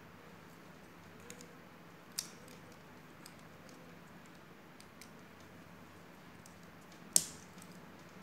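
LEGO bricks clicking as they are pressed together by hand: a few sharp plastic clicks with faint ticks between, the loudest about seven seconds in.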